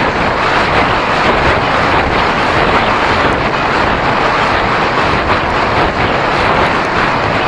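Steady wind rush buffeting the microphone of a camera on a moving bicycle.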